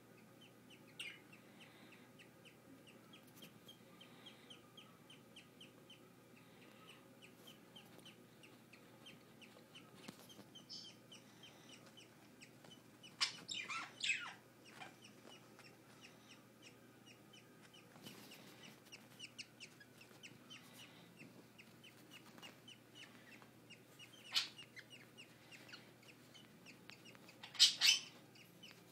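Baby English budgie chicks peeping in a quick, steady series of short high cheeps, with a few louder, harsher calls about halfway through and again near the end.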